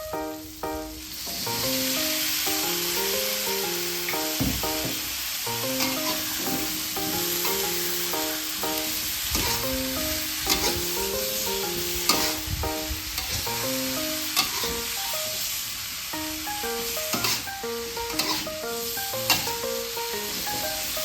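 Food sizzling as it fries in a pan, the hiss starting about a second and a half in, with occasional sharp clicks and knocks. A melody of background music plays throughout.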